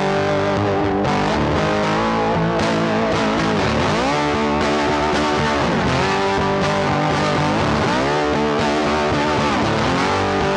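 Background music: distorted electric guitar rock, with bending, sliding guitar notes over bass.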